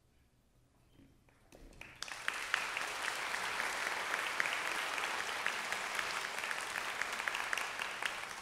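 Near silence after the last note, a few scattered claps, then the audience breaking into full, steady applause about two seconds in.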